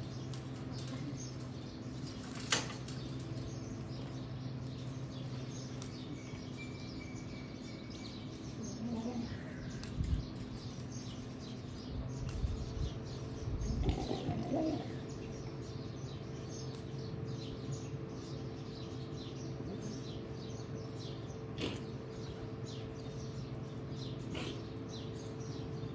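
Small birds chirping over a steady low hum, with a single sharp click a few seconds in and a brief louder call around fourteen seconds in.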